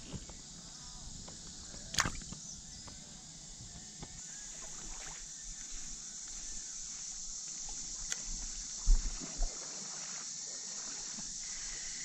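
Steady high-pitched chorus of insects, with a sharp click about two seconds in and two short low thumps about three quarters of the way through.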